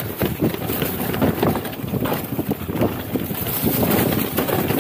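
Mountain bike riding down a dry dirt trail: tyres crunching over the dirt and the bike rattling with irregular knocks over bumps, with wind buffeting the microphone.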